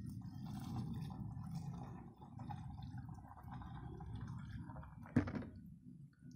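Water poured from a bucket into the top of a vertical PVC borehole pipe, filling the deep-well suction line to prime it. A sharp knock about five seconds in is the loudest sound.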